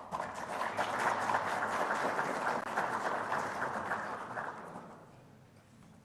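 Audience applause: many hands clapping, starting at once and dying away about four to five seconds in.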